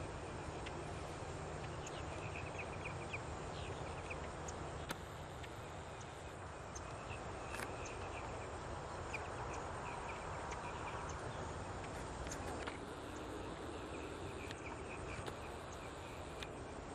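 Outdoor ambience: faint, repeated high chirping of insects over a steady low background noise, with a few light clicks.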